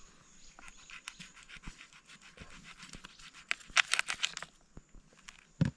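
Kitchen knife chopping fish pieces on a cutting board: a run of quick short cuts, busiest and loudest around the middle, ending with one heavier thump near the end.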